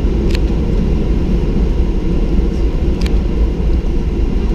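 Cabin noise of a Boeing 737-800 taxiing after landing: a steady, low-pitched engine and airframe noise from its CFM56-7B engines. Two brief clicks come through, about a third of a second in and about three seconds in.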